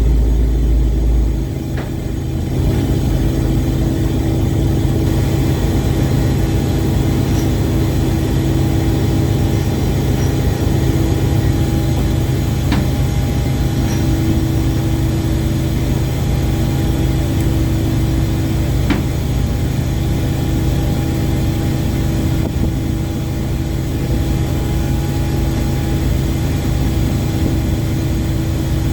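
Ship's engine running steadily: a loud, unbroken drone with a deep hum and a few steady tones over it, and a few faint knocks.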